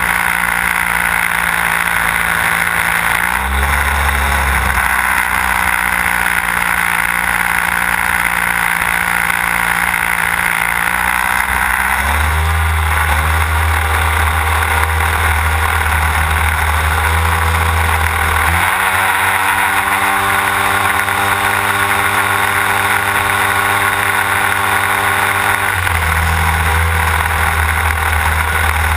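Desert Aircraft DA-150 twin-cylinder two-stroke gasoline engine of a large-scale model aerobatic plane in flight, heard close up with propeller and wind noise. The engine note shifts pitch several times, with short glides about 4, 12, 19 and 26 seconds in.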